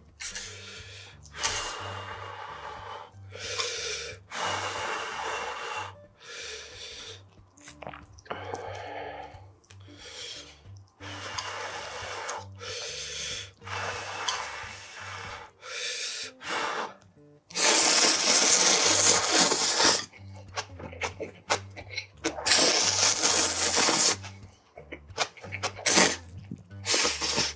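Close-up eating sounds of a person slurping and chewing Korean ramen noodles: short slurps and mouth noises, then two long, loud slurps of about two seconds each in the second half.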